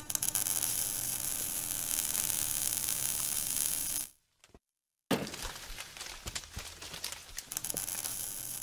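Sound effects for an animated logo intro. A steady crackling hiss with a faint low hum runs for about four seconds and cuts off. After about a second of silence comes a sudden hit, followed by scattered crackles and clicks.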